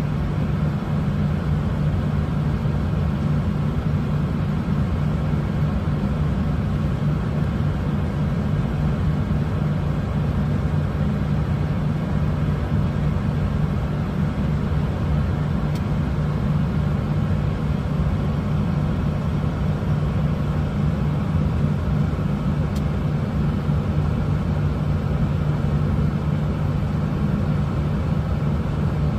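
Steady cabin drone inside an airliner cockpit during taxi: engines idling and air systems running, a constant low hum under an even rush with no change.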